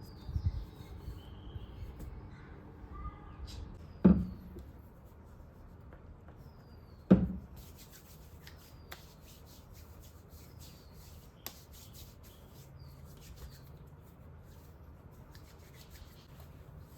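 Two loud knocks about three seconds apart, amid light clicks and rustling of things being handled, with faint bird chirps in the first few seconds.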